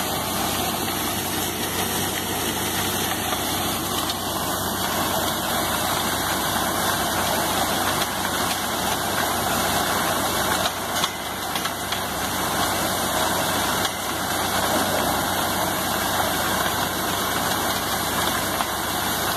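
Borewell drilling rig running steadily, its engine and machinery making a continuous heavy noise as muddy water is blown up out of the freshly drilled bore.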